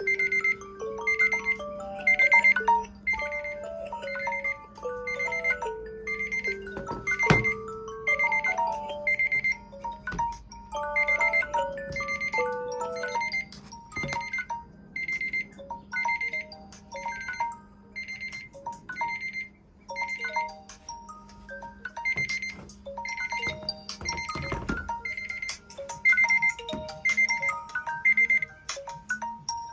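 Several tablets and phones sounding timer and alarm tones at once, among them Samsung Galaxy Tab S, Tab 8 and Tab 4 tablets. A high beep repeats nearly twice a second, pausing now and then, over overlapping marimba-like ringtone melodies and a low steady tone.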